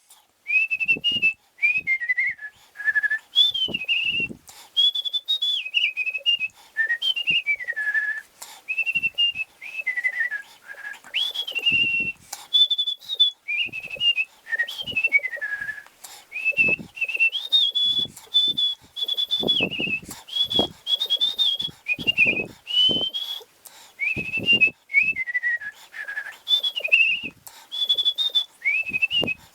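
A person whistling a tune: one clear, high whistled line that glides up and down in short phrases with brief breaks between them, with faint low thumps here and there.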